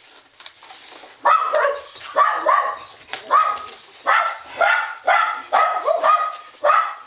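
Dogs barking over and over, about two barks a second, starting about a second in.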